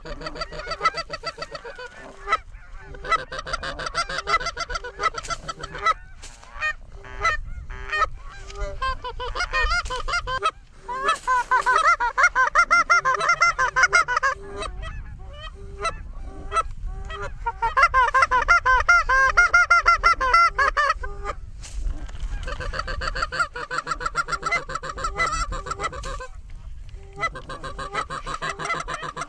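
Geese honking and clucking, many rapid calls overlapping in long runs with short breaks, loudest in two stretches near the middle.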